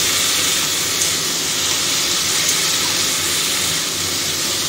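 Chopped vegetables and soya chunks in soy sauce sizzling steadily in a hot metal kadai as a spatula stirs them.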